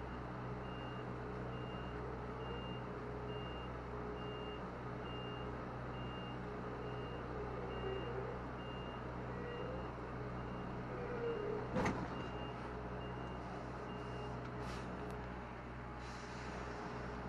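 Reversing alarm beeping about once a second over the steady hum of the lorry's diesel engine, heard inside the cab, as the double-deck trailer is pushed back up onto the loading bay's risers with extra power. A single knock comes about twelve seconds in, and the beeping stops shortly after.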